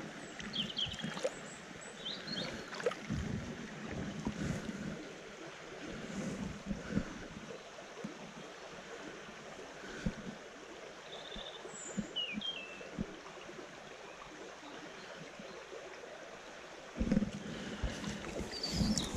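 Running river water with wind buffeting the microphone, scattered low knocks, and a few short high chirps; the low rumble grows louder for the last couple of seconds.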